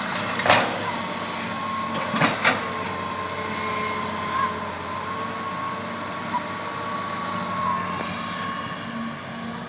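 Excavator running steadily with a constant high whine over its engine hum. Three sharp knocks come about half a second in and twice in quick succession just after two seconds.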